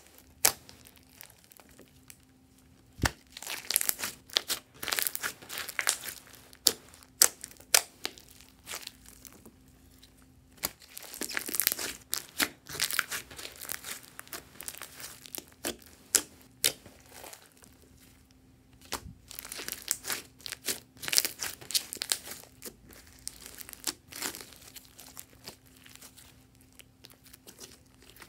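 Hands poking, kneading and stretching a large mass of glossy slime. It makes sharp sticky clicks and pops, and in several spells of working it, a dense crackling as trapped air bursts.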